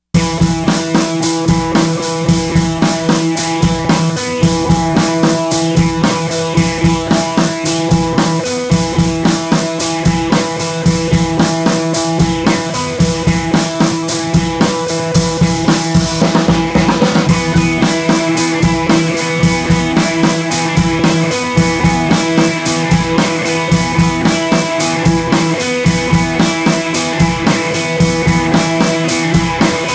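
Background music with a steady drum-kit beat over held notes, with a brief sweeping transition about halfway through.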